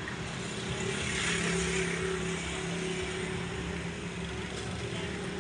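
Street noise with a steady, low engine-like hum running throughout.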